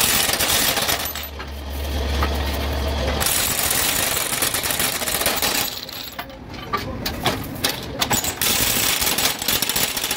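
Impact wrench rattling as it runs down the bolts of excavator track shoes, in bursts separated by a short pause with metal clinks.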